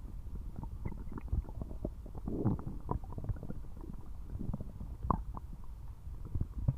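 A person's stomach gurgling loudly, with irregular bubbling and popping, a denser bubbly stretch a little past the middle and a sharp gurgle about five seconds in.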